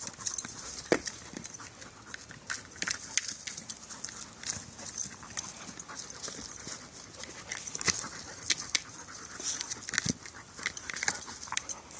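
A dog pushing a large ball around with its nose and paws over dry leaves and pine needles: irregular scuffing, rustling and knocks, with a few louder knocks.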